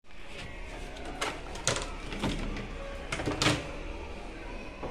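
Irregular sharp clicks and knocks of a tool and hands on the washing machine's opened plastic control-panel housing, over a steady low hum.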